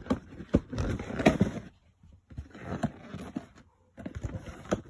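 Handling noise as a small drone is packed into its cardboard box: irregular scrapes, rustles and sharp knocks, broken by a couple of brief silent gaps.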